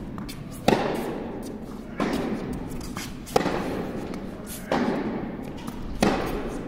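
A tennis rally: the ball is struck by rackets and bounces on the court, giving five sharp knocks about 1.3 seconds apart, each echoing in a large indoor tennis hall.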